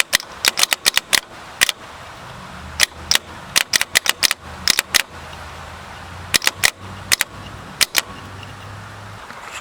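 Starter motor solenoid on the bench, jumped with a wire, clicking over and over at an uneven pace while the motor does not turn, with a low hum under the clicks. The clicking without turning is put down to a dead spot on the armature.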